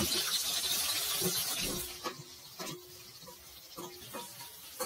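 Sliced onions sizzling in hot oil in a large metal cauldron, a loud hiss that falls away about two seconds in. Then a few light metallic clinks, some with a short ring.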